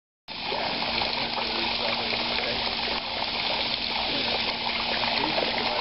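Water from a cast-stone lion-head tiered fountain spilling and splashing into its basins, starting suddenly just after the start. A steady low hum runs underneath.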